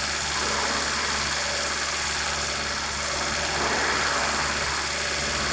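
Honda Civic's D16V1 four-cylinder engine idling steadily, with a constant high hiss over it: a vacuum leak, which the owner traced to the throttle body gasket.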